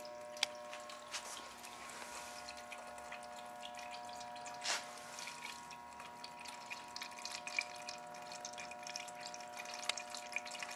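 Fluid draining out of a car and dripping and trickling into a nearly full catch container, with irregular small drips and one louder splash about halfway through, over a faint steady hum.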